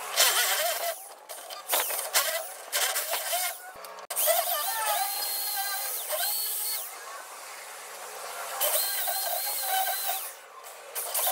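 Corded hammer drill boring out a steel ball-joint rivet, heard in sped-up playback. The motor whine is high-pitched and rises then holds in several separate runs, over a harsh grinding hiss.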